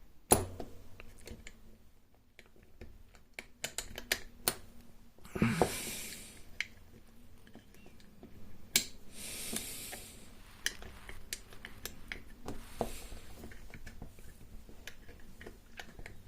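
Small irregular clicks and taps of lock levers and parts being handled while a lever lock is taken apart, with a few brief rustles of handling.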